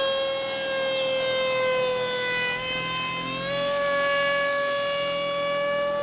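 Electric motor of a 3S-powered foam RC plane in flight, a steady whine whose pitch sags a little and then steps up about three and a half seconds in.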